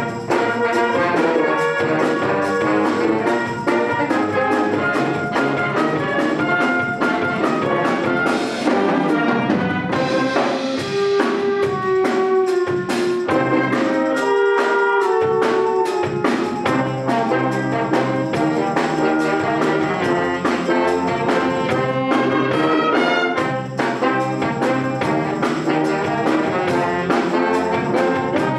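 A concert wind band playing, led by brass with woodwinds and light percussion.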